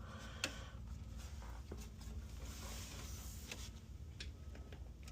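Scattered light clicks and taps of hands working on a PLC panel's plastic wiring-duct covers and wires, with one sharper click about half a second in, over a steady low hum.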